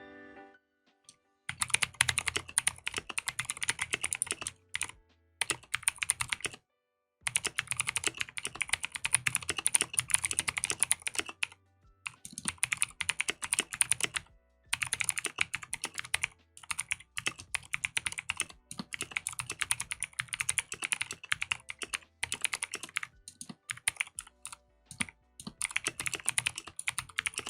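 Clicky mechanical keyboard with PBT keycaps, its case stuffed with basketball cards, being typed on in fast runs of sharp key clicks, with brief pauses between the runs.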